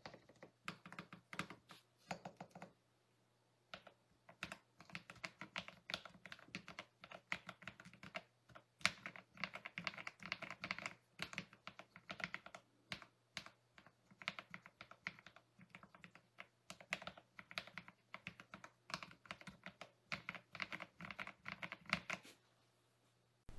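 Typing sound test on a mechanical keyboard fitted with Akko CS Matcha Green linear switches, in a foam- and tape-modded ID67 v2 board with PBT keycaps. Quick runs of keystrokes with a short pause about two seconds in.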